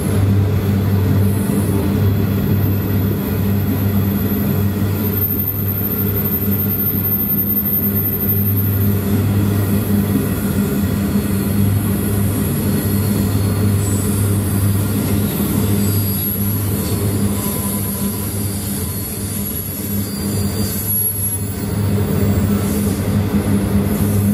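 Empty iron ore wagons rolling past on the track, a steady low rumble of steel wheels on rail, with faint high-pitched wheel squeals now and then.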